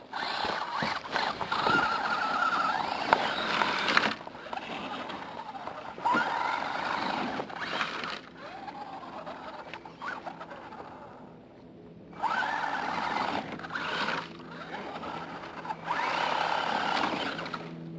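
Kyosho Le Mans 240ST brushed electric motor and drivetrain of an Associated SC10 radio-controlled short course truck whining in surges as the throttle is worked, the pitch rising and falling with speed. It drops almost away for a moment about eleven seconds in, then winds back up.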